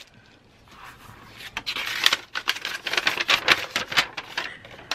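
A sheet of paper being handled and unfolded, giving a stretch of crackly rustling with quick crinkles.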